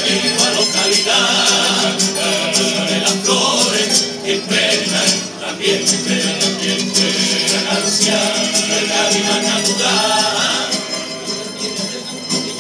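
A Cádiz carnival coro singing a tango in chorus over a band of strummed guitars and bandurrias keeping a steady rhythm.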